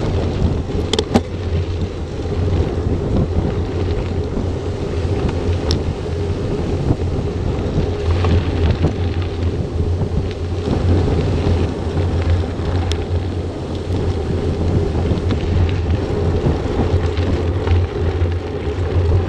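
Wind buffeting the action camera's microphone and mountain-bike tyres rolling over a gravel road at speed, a steady rushing rumble. A few short sharp ticks stand out, about a second in and again around six and thirteen seconds.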